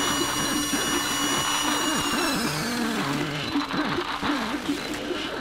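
Experimental electronic sound-design soundscape: a cluster of high, steady tones slides down in pitch and fades about two to three seconds in, over a dense layer of warbling, wavering lower tones.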